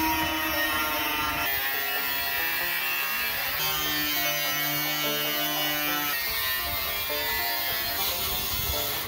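Cordless angle grinder with a cut-off disc cutting through a steel drum, a steady high-pitched grinding that stops sharply at the end. Background music plays beneath it.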